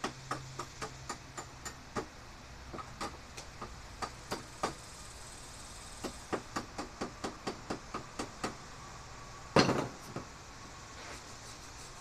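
Small hammer tapping on the freshly welded metal of a garage door spring hook, runs of quick light taps about three to four a second with short pauses, then one much louder bang with a brief ring near the end.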